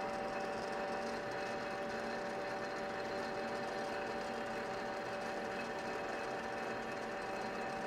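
South Bend metal lathe running steadily at about 300 RPM while a center drill in the tailstock drill chuck cuts a 60-degree chamfered center hole in the end of the spinning stock. An even mechanical hum with two held tones.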